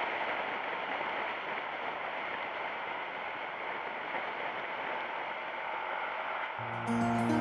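Steady rush of wind and road noise from a motorcycle riding along at speed, picked up by a bike-mounted camera. Music starts near the end.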